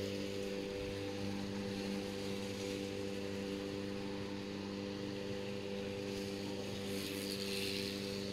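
A steady machine hum at one unchanging pitch, with a faint hiss above it.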